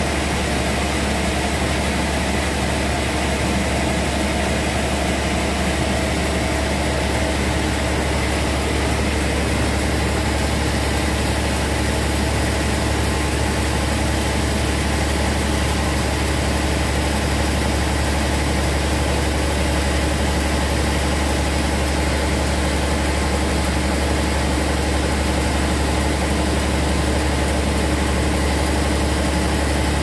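Large band sawmill running steadily as its blade saws through a big teak log: a constant low hum with a few steady tones above it, unchanging throughout.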